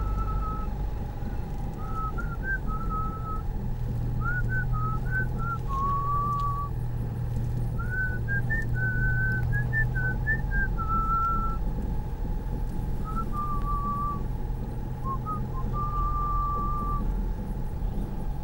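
A person whistling a tune in short phrases with little upward slides between notes, over the steady low rumble of a car on the road.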